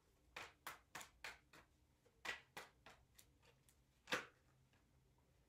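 Deck of tarot cards being shuffled hand to hand: a string of about a dozen soft, irregular card taps and slaps, the loudest a little after four seconds in.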